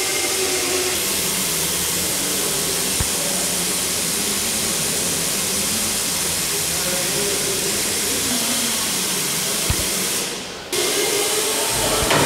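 Steady loud rushing hiss of workshop machinery, with faint voices underneath; it fades out briefly about ten seconds in, then comes back abruptly.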